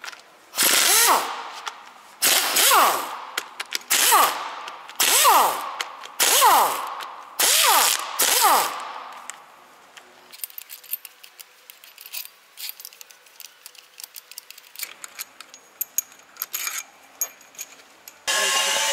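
Pneumatic impact wrench run in about six short bursts roughly a second apart, each spinning up and back down, as it undoes the bolts of a truck engine's air compressor. After that come light clicks and taps of metal parts being handled.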